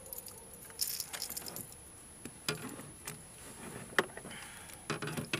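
Light metallic clinks and rattles of a fishing plug's hooks and a handheld unhooking tool as a hybrid striped bass is taken off the lure, with scattered sharp knocks and handling sounds.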